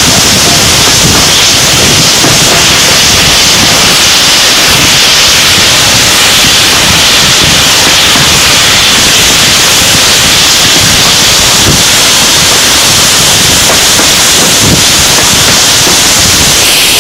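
Loud, steady rush of wind over the microphone of a camera held out of the carriage window of a moving steam-hauled train, mixed with the train's running noise.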